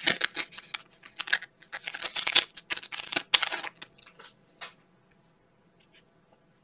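Foil trading-card pack being torn open and crinkled in the hands, then the cards slid out, with a few light clicks as they are handled. The crinkling is densest in the first three and a half seconds and stops about five seconds in.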